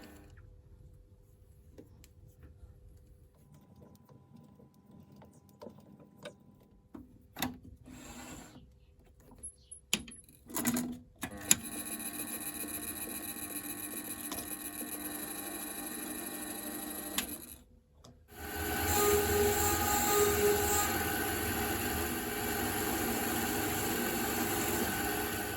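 Quiet clicks and knocks of handling, then a small bench-top lathe's motor and gearing running steadily. It drops out briefly about two-thirds of the way through and comes back louder.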